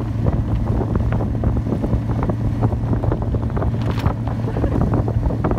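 Snowmobile engine running steadily while towing a loaded cargo sled, with wind noise on the microphone and frequent rattles and knocks from the sled.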